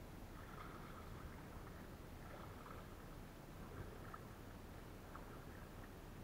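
Faint kayak paddle strokes: soft splashes and drips as the blades dip into the water, one every second or two.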